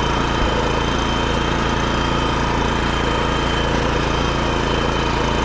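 BCS walk-behind tractor's engine running steadily at an even pitch.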